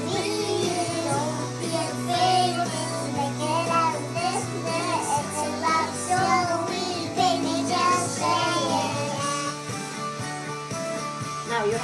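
A young girl singing into a karaoke microphone over a game's backing music playing from the TV.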